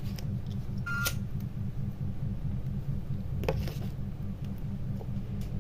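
Steady low hum, with a short high beep and click about a second in and another faint click later.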